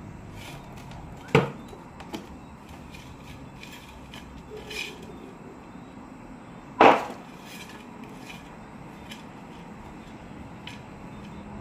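Hands pouring and working potting soil in a pot, with scraping and small clicks. Two loud, sharp knocks about five seconds apart.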